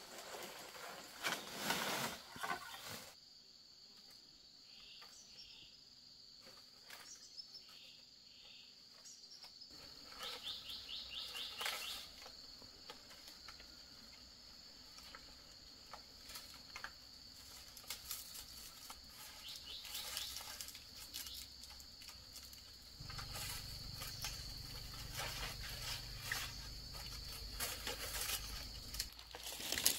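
Insects droning with a steady, high, even tone, with a quick run of bird-like chirps partway through and scattered knocks and rustles, loudest near the start. A low hum comes in near the end.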